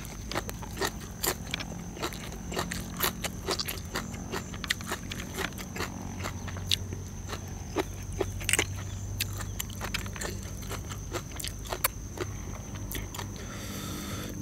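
Close-up eating sounds: a steady run of sharp crunches and clicks as food is bitten and chewed, several a second.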